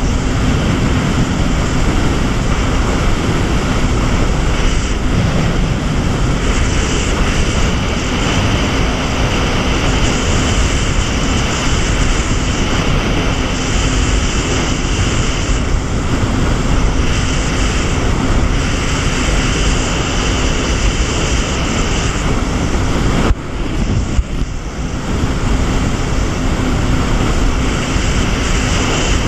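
Jet ski running at speed across open water: a loud, steady engine hum mixed with rushing water and spray. The sound briefly drops in level about three quarters of the way through, then picks up again.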